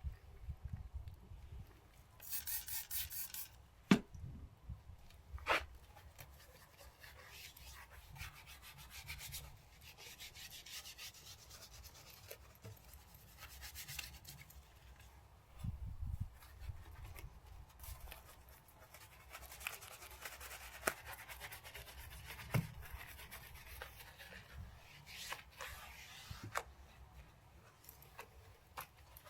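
Irregular scrubbing and rubbing, as of a brush or pad worked over a car's surface, with a few sharp knocks.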